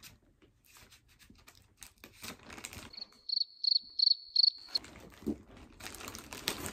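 Plastic mailer bag crinkling and tearing faintly as it is pulled open by hand. About three seconds in, a high, thin chirping tone pulses about three times a second for nearly two seconds.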